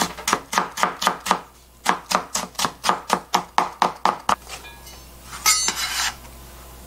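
Kitchen knife chopping Korean radish into thin strips on a plastic cutting board, about four even strokes a second with a short break after the first second and a half. About five and a half seconds in, the knife scrapes across the board, gathering up the cut pieces.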